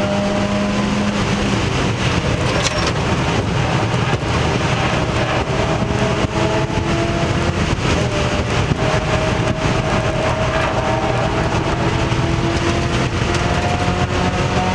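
Mazda Miata race car's four-cylinder engine at full throttle, heard from inside the stripped, roll-caged cabin. The engine note climbs steadily through the revs and drops back several times as the driver shifts gears.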